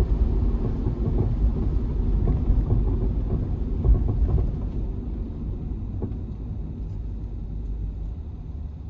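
Low, uneven rumble of a Honda Step WGN (RG1) minivan on the move, with a few faint knocks in the first half. The rumble eases off after about halfway.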